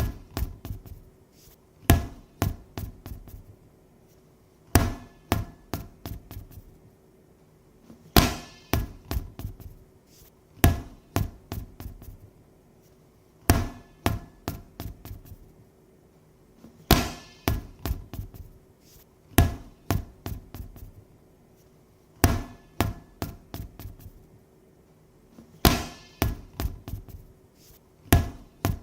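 A ball dropped and bouncing to rest, each run opening with one loud bounce followed by quicker, quieter bounces that die away; the drop repeats about ten times, a few seconds apart.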